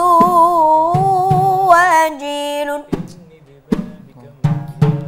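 A man sings a long, wavering melismatic note of an Islamic ibtihal, accompanied by slow, deep hand strikes on a large frame drum. The voice stops about three seconds in, and the drum goes on alone with a few spaced strikes.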